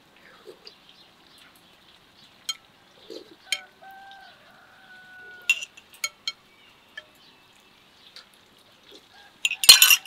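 Metal spoons clinking against glass and china soup plates: a few light scattered clinks, then a louder quick cluster of clinks and knocks near the end.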